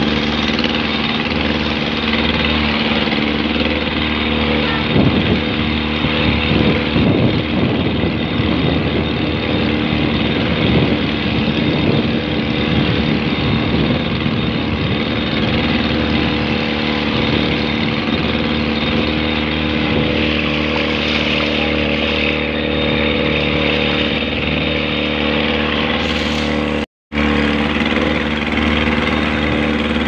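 A small motorboat's engine running steadily under way, over a constant rush of water and wind. The sound cuts out completely for a moment near the end, then resumes unchanged.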